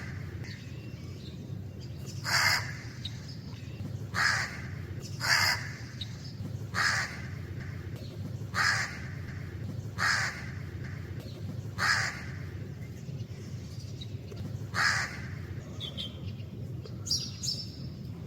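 Crow cawing repeatedly: about eight harsh caws spaced a second or two apart, over a steady low background rumble. Near the end come a few higher, thinner notes.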